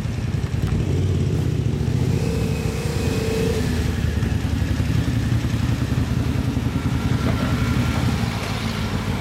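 2011 Yamaha Cygnus-X scooter's 125 cc single-cylinder four-stroke engine idling steadily through an aftermarket JOSHO1 Hyper Racing exhaust.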